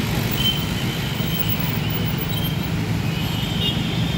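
Steady road traffic noise, an unbroken low rumble of passing vehicles.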